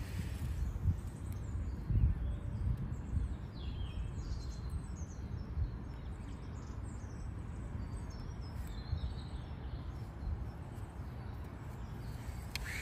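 Outdoor ambience: a steady low rumble with birds chirping now and then, and a short click near the end.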